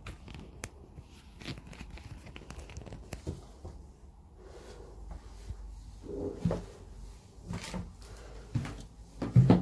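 Footsteps going down a rubble-strewn stairway, with scattered crunches and knocks from debris underfoot and a heavier thump near the end.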